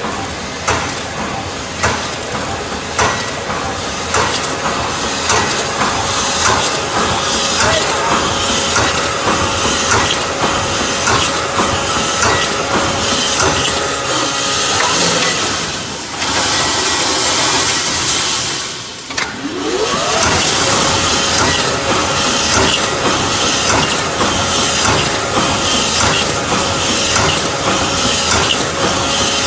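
Full automatic wire mesh panel welding machine running, its line wires feeding from coils through straightening rollers, with constant irregular clicks and knocks over a steady whine and hiss. About halfway the whine drops out under a burst of hiss, then comes back with a rising whine as the drive spins back up.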